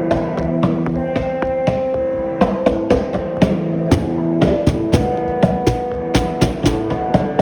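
Instrumental passage of rock music: drum kit hits over held distorted guitar and bass notes, with the drum strokes coming faster in the second half.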